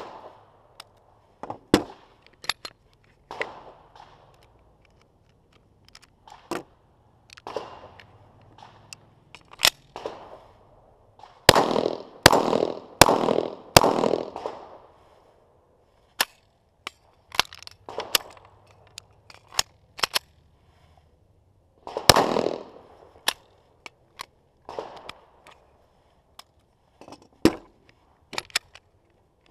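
9mm pistol firing 115-grain steel-case MaxxTech ammunition, which the shooter calls under-pressured and inconsistent. Four sharp shots come in about two and a half seconds near the middle, and one more follows about eight seconds later. Smaller sharp clicks are scattered between them.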